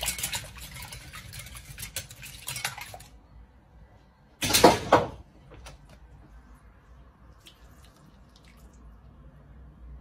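Kitchen handling sounds as a bowl of egg-and-cream quiche filling is readied and poured into a pastry crust. A crackly rustle, like plastic packaging, lasts about three seconds. A short loud burst comes about four and a half seconds in, followed by a few faint ticks.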